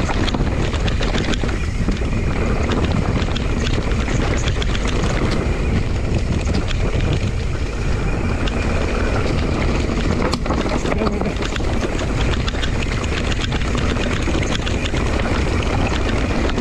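Wind noise on the camera microphone and a mountain bike's tyres rolling over a rocky dirt trail, with frequent small rattles and knocks from the bike over the rough ground.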